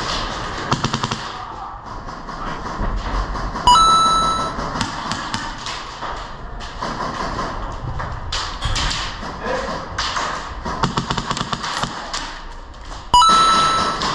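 HPA airsoft rifle firing short rapid bursts of sharp clicking shots, several bursts in all. Twice, about four seconds in and again near the end, a sudden loud sound with a steady ringing tone lasts about a second.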